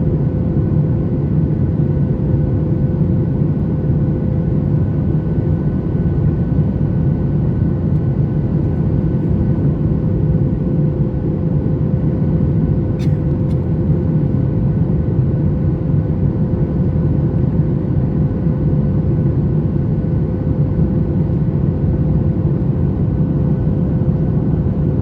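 Steady cabin noise of a Boeing 737 MAX 8: the deep, even rumble of engines and airflow, with a constant hum on top. A single faint click about halfway through.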